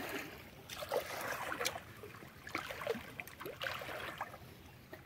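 Water sloshing and splashing a few times in short bursts as someone moves through the shallow pond water and handles it while hunting for fish.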